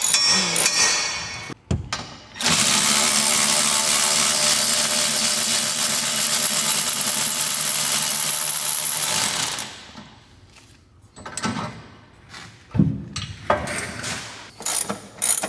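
Cordless power tool running steadily for about seven seconds, spinning out a rear shock bolt, then stopping. A few light clicks of tool handling follow.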